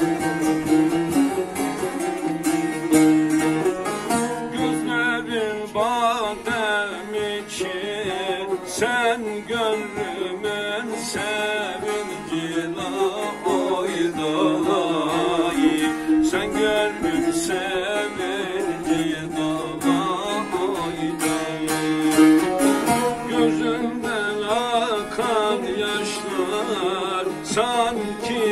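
Turkish folk music led by a plucked long-necked lute, the bağlama (saz), playing a continuous melody with bending, wavering notes.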